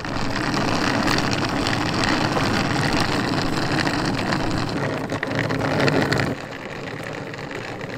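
Hard plastic wheels of a rolling suitcase rumbling over a rough asphalt road, a loud, gritty rolling noise that drops to a quieter rumble about six seconds in.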